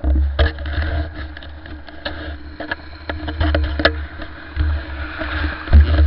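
Wind buffeting on a helmet camera's microphone from a moving Babetta 207 moped on a rough dirt track, with irregular sharp rattles and knocks from the jolting ride and a heavy thump near the end. The moped's small two-stroke engine runs underneath as a steady hum.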